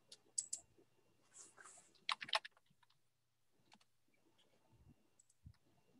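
Faint computer keyboard typing and clicks, coming in a few short clusters with near quiet between them, and a couple of soft low thumps near the end.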